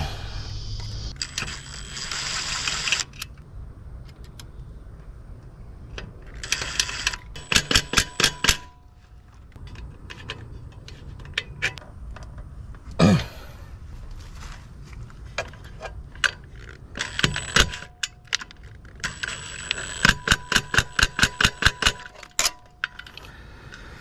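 Ratcheting hand tool working screws in a metal electrical box: two runs of sharp metallic clicks, about five a second, the second run longer, with a single knock midway.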